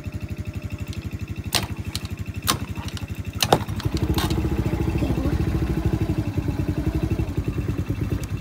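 Small ATV engine running at an even idle, with three sharp clicks in the first few seconds. About four seconds in it is revved up to a louder, faster run, held there, then let back down to idle near the end.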